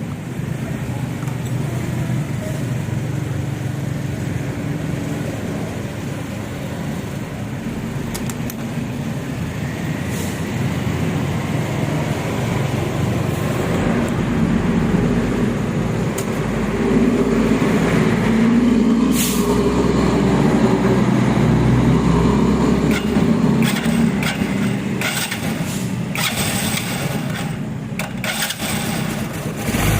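Motorcycle engine running, growing louder and higher in pitch partway through as it is revved, with a run of sharp clicks near the end.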